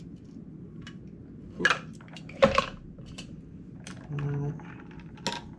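Metal cocktail shaker, strainer and ice-filled glass clanking and clinking on a bar counter as a whisky sour is strained onto fresh ice and stirred: two loud clacks about two seconds in, then a few lighter clinks.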